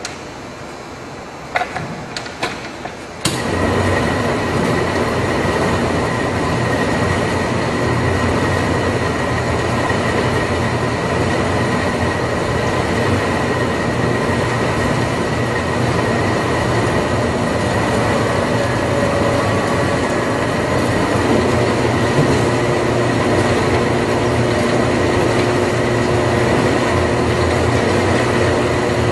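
Package conveyor running: a steady rumble of belt and rollers with a thin continuous whine, starting about three seconds in after a few sharp clicks.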